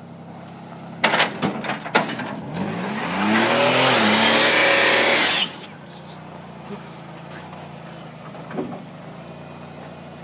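Car engine revving hard as its tyres spin on the trailer, with a loud hiss of wheelspin that rises and falls for about three seconds and cuts off suddenly. A few sharp knocks come just before the rev, and the engine settles back to running quietly afterwards.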